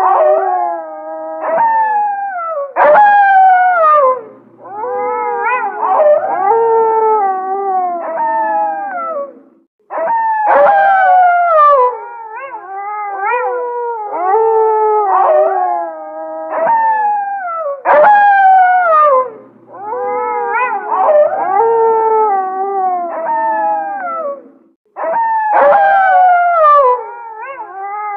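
A pack of wolves howling in chorus: several howls at different pitches overlap, each sliding down in pitch. The same passage of howling repeats about every seven and a half seconds, as if looped.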